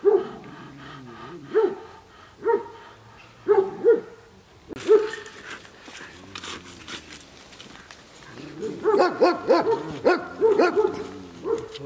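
Dog barking: single barks about a second apart for the first five seconds, then a quicker run of barks near the end.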